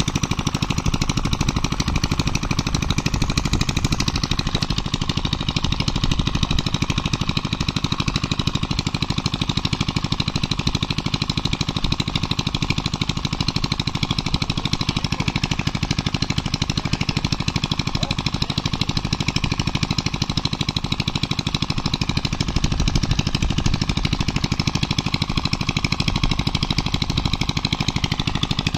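A small engine running steadily at an even idle, with a fast, regular knocking beat.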